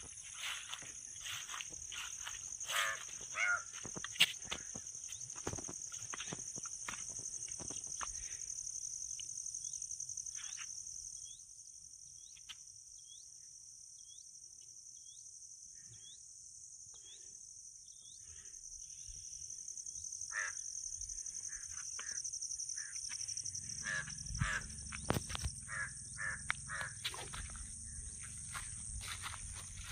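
Outdoor hillside ambience: a steady high-pitched insect drone runs throughout, with birds calling over it, including harsh caw-like calls and a series of short repeated chirps in the middle. A low rumble joins in for the last few seconds.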